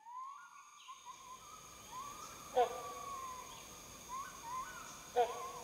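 Tropical forest dawn ambience with a steady high insect drone. Birds give repeated rising and falling whistled calls, and louder calls stand out about two and a half and five seconds in.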